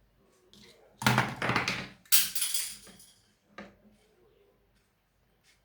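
Handling noise of a ceiling fan's wire leads and multimeter probes: a few light clicks and knocks, with two louder rustling, scraping bursts about a second in.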